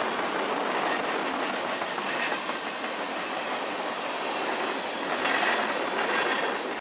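Freight train of crude-oil tank cars rolling past at speed, steel wheels clicking over the rail joints in a steady rhythm, over the hiss of heavy rain.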